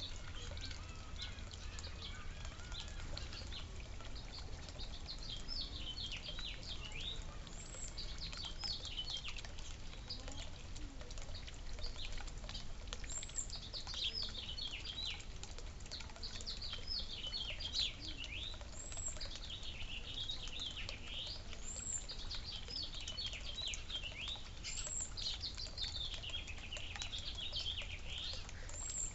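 Small songbirds chirping and twittering in quick runs of short notes, with a brief very high note recurring every few seconds, over a steady low hum.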